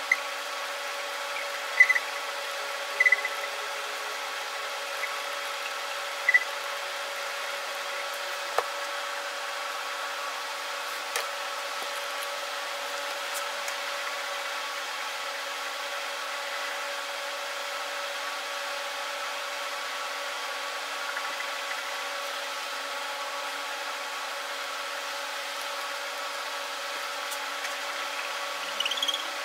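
1000-grit wet sandpaper on a small hand sanding block rubbing down a run in a car fender's clear coat, with a few short squeaks, mostly in the first several seconds. A steady hum runs underneath.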